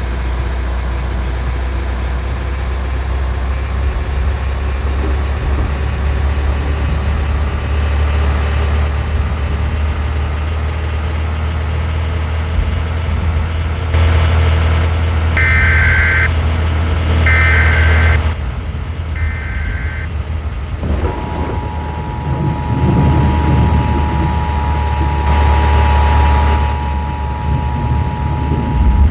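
Steady low rumble of a vehicle on the move. Midway through come three short data-burst screeches, and then a steady two-tone alarm sounds to the end. This is an Emergency Alert System broadcast: the SAME header sent three times, then the attention signal, announcing a warning.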